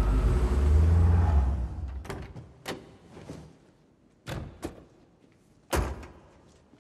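Dodge Charger police car's engine running low and fading out over the first two seconds as the cars come to a stop. Then come several clicks and knocks of a car door being opened, and a door slam about six seconds in.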